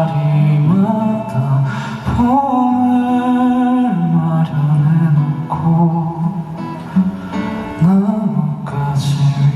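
Live band music: a male voice singing long held notes over acoustic guitar and band accompaniment.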